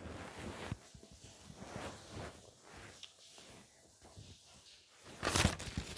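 Faint rustling and light clicks at low level, with one louder brief rustle about five seconds in.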